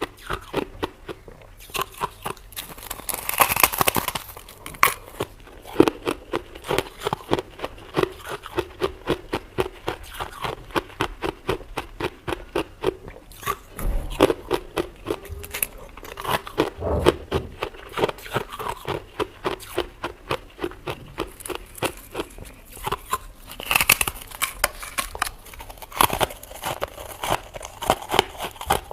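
Freezer frost being bitten and chewed: a rapid, continuous run of crisp crunches and crackles.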